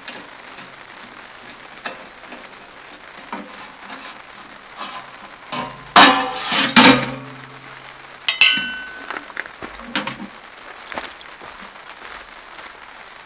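Stainless steel tent stove's sheet-metal ash drawer and parts being handled: a clattering, scraping rattle about six seconds in, then a sharp clink that rings briefly, with a few lighter knocks after.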